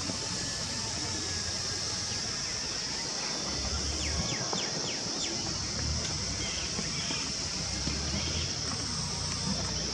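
Outdoor background: a steady high-pitched hiss with a low rumble beneath, and a few quick bird chirps about four seconds in.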